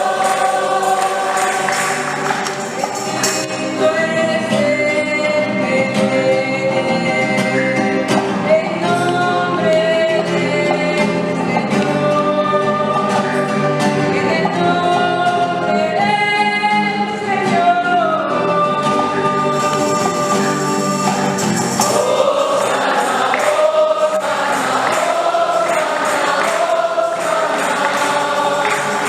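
A church choir sings a hymn in held, stepwise notes, with light percussion keeping time underneath.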